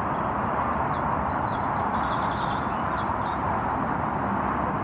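A small songbird singing a quick run of short, high, falling chirps for about three seconds, over a steady outdoor rush of background noise.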